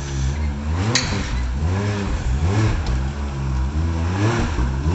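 Can-Am Maverick X3 side-by-side engine revved in repeated short blips while rock crawling, its pitch rising and falling about once a second. A sharp knock about a second in.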